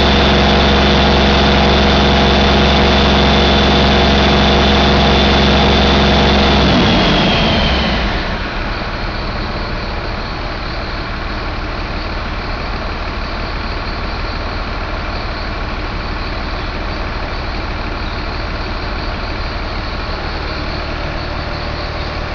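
Mercedes-Benz MBE906 inline-six turbo diesel running at raised speed with a steady high whine. About seven seconds in, the revs and whine fall away and the engine settles to a steady idle.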